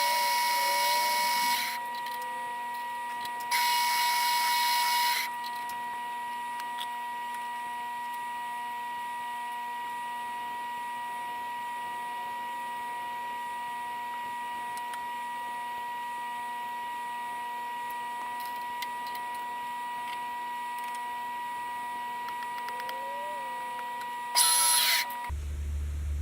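A power tool's motor running with a steady high whine, with loud bursts of rushing noise at the start, about four seconds in and near the end. Just before the end the whine stops and a low hum takes over.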